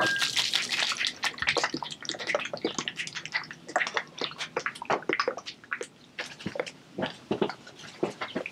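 Thick barbecue sauce sloshing and splashing inside a closed shaker as it is shaken by hand, a rapid, irregular run of wet knocks.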